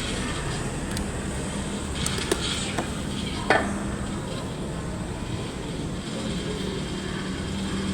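A few small clicks and knocks as a new fuse is fitted into a motorcycle's fuse box, the sharpest about three and a half seconds in, over a steady hiss of background noise.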